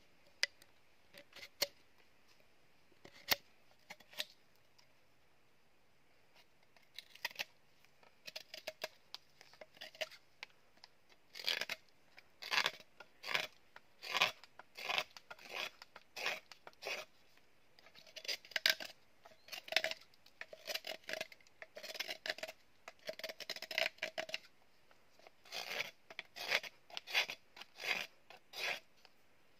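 A knife whittling a piece of green bamboo: short, crisp scraping cuts, about two a second, with brief pauses. A few scattered clicks come first.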